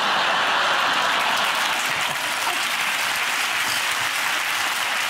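Studio audience applauding, a dense steady clapping.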